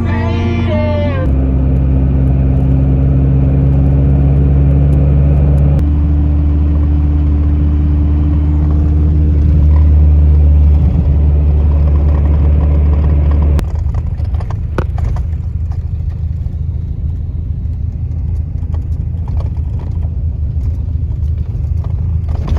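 Car driving: a steady low engine hum whose pitch steps up slightly about six seconds in, giving way about fourteen seconds in to a rougher rumble of road noise with scattered clicks and knocks. Music with singing fades out in the first second.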